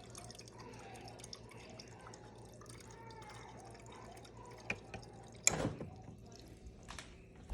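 Water trickling and dripping faintly into a container, with a single sharp knock about five and a half seconds in.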